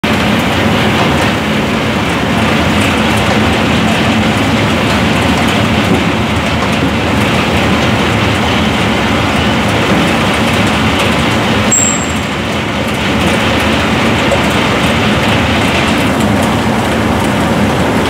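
MAXIA MX-LP220 abrasive roller peeler-washer running with a load of jicamas: the rollers turn and water sprays as the tubers tumble and are peeled by friction, giving a loud, steady machine din.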